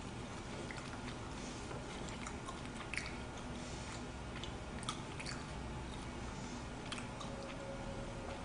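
A person eating quietly: soft chewing, with a few light clicks of chopsticks against the dishes.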